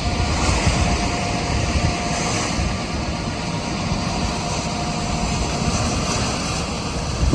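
Heavy farm vehicle's engine running steadily, a low continuous rumble with a faint steady whine above it.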